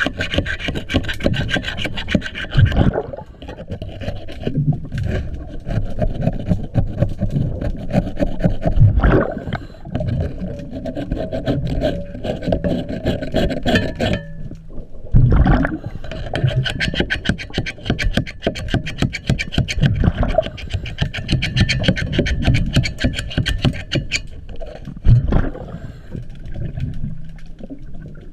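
Underwater scraping and rubbing against a boat's propeller shaft by the cutlass bearing, working wrapped braided fishing line free: a run of rapid rasping strokes with irregular knocks, in uneven spells.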